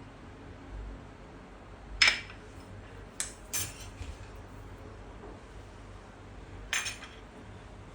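Kitchen utensils and cookware clinking: four sharp knocks, the loudest about two seconds in, two close together a second later, and one more near the end.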